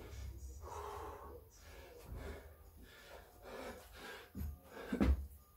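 Heavy, rapid breathing of a man exerting himself during a set of burpees, each breath a short noisy puff. Near the end come two thuds, the second the loudest, as he drops to the concrete floor for the next rep.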